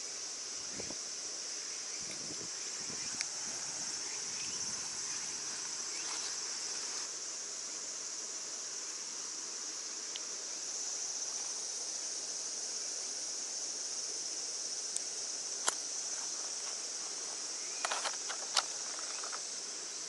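Steady, high-pitched chorus of summer insects. A few light clicks come near the end as the line and chatterbait are handled.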